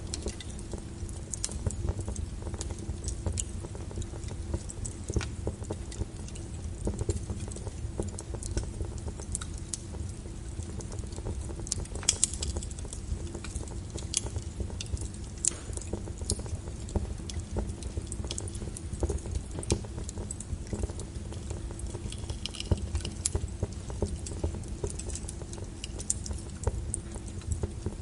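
Wood fire burning in an open brick fireplace: a steady low rumble of flame with frequent, irregular crackles and pops from the burning logs.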